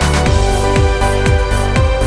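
Background electronic music with a steady kick-drum beat, about two beats a second, over held synth tones.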